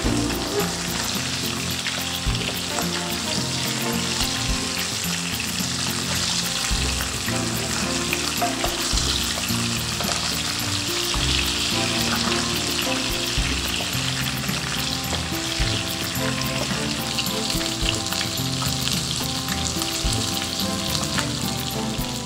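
Turmeric-coated rohu fish pieces shallow-frying in hot oil in a nonstick pan, a steady sizzle as they fry until golden, with an occasional spatula stir. Soft background music runs low underneath.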